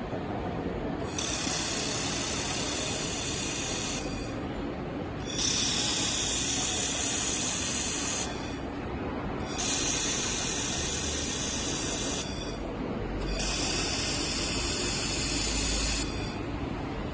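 Robotic laser wire-feed welding of stainless steel: four bursts of high-pitched hiss, each about three seconds long, with short pauses between as each weld pass starts and stops.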